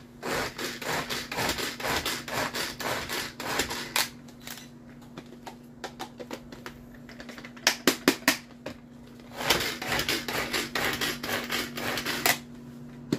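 Tupperware pull-cord chopper chopping green onions: quick rasping, clicking runs as the cord is pulled again and again and the blades spin. There are two long runs with a short pause and a few sharp clicks between them.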